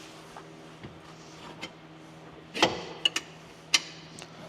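A few sharp metal clinks and knocks as a 19 mm bolt is handled and fed toward the shock's lower mount in the control arm, the loudest about two and a half seconds in, over a steady low hum.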